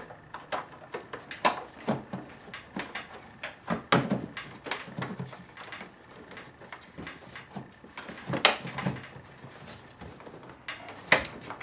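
Irregular plastic clicks and knocks from an air filter housing and its ribbed intake duct being handled and seated by hand, with a few sharper, louder knocks among them.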